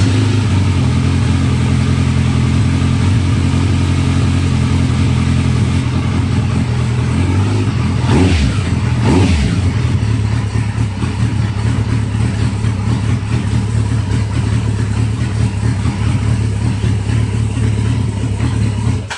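Suzuki GSX1400's 1402 cc air-and-oil-cooled inline-four idling just after its first start following a 100,000 km top-end overhaul and a 0.5 mm cylinder-head skim. Its idle firing sounds a touch louder, which the owner ties to the skimmed head. The throttle is blipped twice, about 8 and 9 seconds in, and the engine is switched off at the end.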